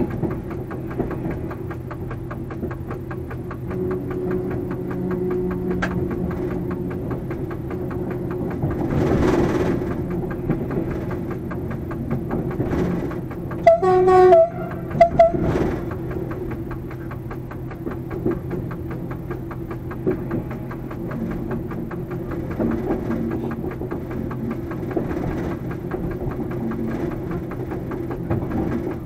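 Diesel engine of a BB 67400-class locomotive running steadily, heard from inside its cab, with wheels clicking over rail joints and points as it rolls slowly. About halfway through, a brief pitched blast sounds, broken into a few short pulses, most likely the locomotive's horn.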